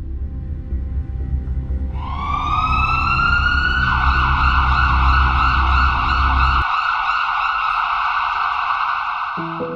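An emergency siren winds up in pitch about two seconds in and then holds one long high wail, over a low rumbling drone of dark music that cuts off about six and a half seconds in.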